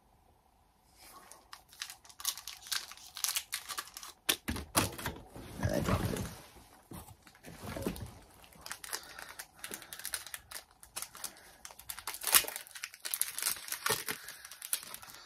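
Foil Pokémon booster pack wrappers crinkling and tearing open, with cards being handled, in a string of small crackles and clicks. A low thump comes about six seconds in.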